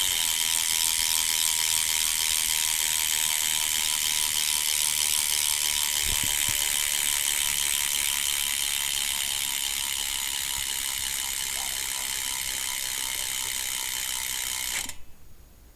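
BMX bike's Odyssey rear hub with a 9-tooth driver freewheeling as the back wheel spins. Its pawls click so fast they blend into an extremely loud, steady ratcheting buzz that eases slightly and then cuts off suddenly about a second before the end.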